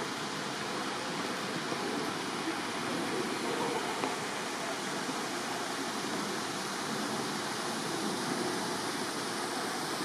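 Manai Falls, a waterfall pouring into a river gorge, making a steady, even rush of falling water.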